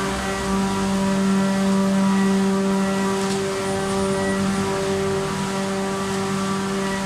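Corrugated paperboard production line running: a steady machine hum with a constant low tone and its overtones, over a continuous wash of machinery noise.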